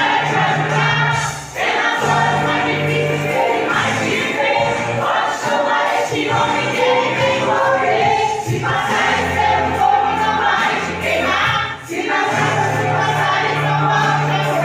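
A group of women singing a gospel praise song together, with instrumental accompaniment holding steady bass notes under the voices.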